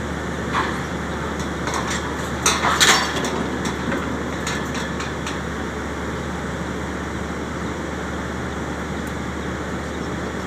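Heavy construction machinery's diesel engine running steadily, with a cluster of sharp metallic clanks and clinks in the first half, loudest about three seconds in.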